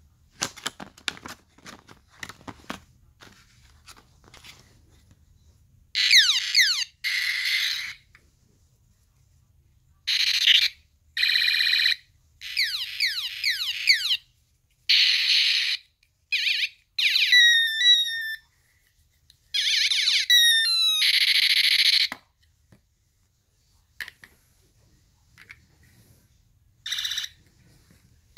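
Miniature battery-powered toy laser guns firing their electronic sound effects: about a dozen short bursts of falling 'pew' zaps and buzzing, alarm-like tones, each a second or two long with pauses between. A few light clicks from handling the toys come first.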